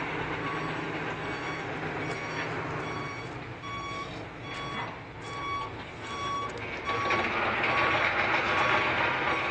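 Back-up alarm on heavy construction machinery beeping steadily, about one beep every 0.6 seconds, over the running of a heavy diesel engine. The engine noise grows louder about seven seconds in.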